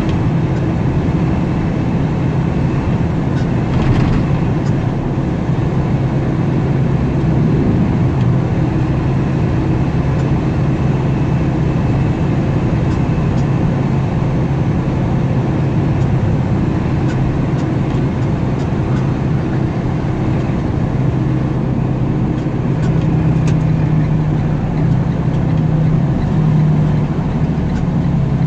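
Car driving at road speed, heard from inside the cabin: a steady low engine hum with tyre and road noise.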